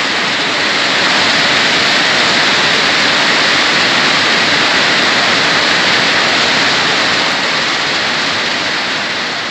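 Steady, loud rush of falling water, easing off near the end.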